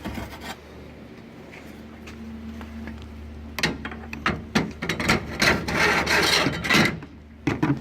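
Tools being handled and shifted on a steel toolbox: a run of knocks and clatter with scraping, busiest from about three and a half seconds in, over a steady low hum.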